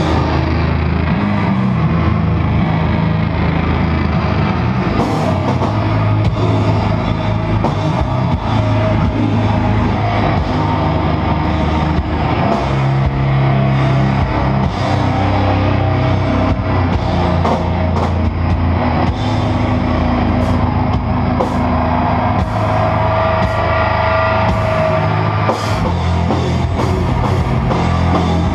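Live sludge metal: heavily distorted electric guitar holding low, droning chords over a drum kit, with cymbal crashes struck now and then, loud and dense.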